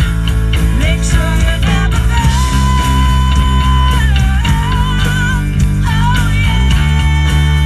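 Rock band playing an instrumental break: a lead guitar line of held, bent notes with wide vibrato over bass and drums.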